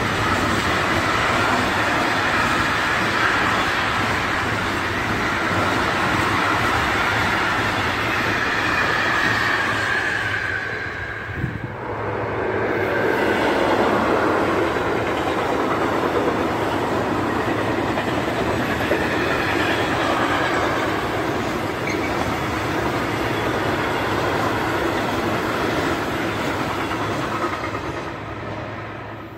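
Freight train wagons rolling past, their wheels clattering on the rails. About a third of the way through, the sound breaks off abruptly and gives way to a second freight train, led by an E.652 electric locomotive, passing and then dying away near the end.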